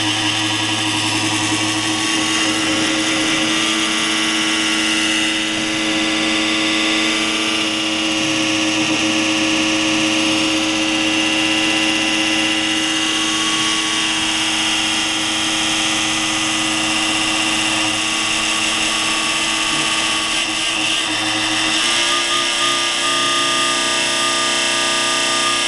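PowerSpec desktop computer making a loud, steady grinding noise at cold start, with a change in its tone near the end. The noise comes at cold starts and stops once Windows loads. The owner blames the power supply, though it has come back with three different units.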